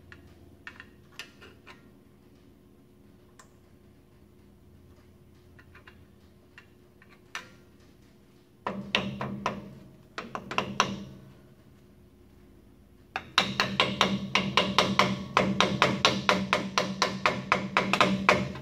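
A hammer rapidly tapping a steel key into the keyway of a 1964 Dodge D100's rear axle shaft, metal striking metal. A few light scattered clicks, then a short run of quick taps about halfway through, and from about two-thirds in a longer, steady run of about five or six taps a second.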